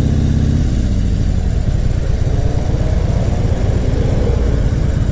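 Harley-Davidson Fat Bob's V-twin engine running as the motorcycle pulls away through an intersection, its pitch dropping about a second in.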